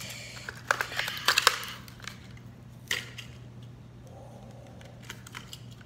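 A Hot Wheels car's plastic blister pack and cardboard backing being torn open by hand. There is a quick run of crackles and snaps for about a second and a half, one more sharp snap about three seconds in, and then it goes quiet.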